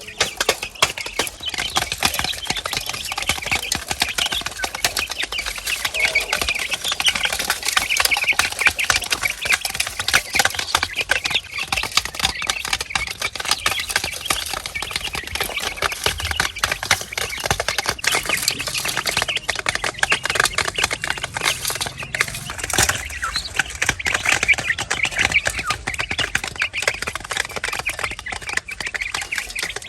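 A flock of chickens at feed, a dense run of quick clicks and pecks mixed with their calls.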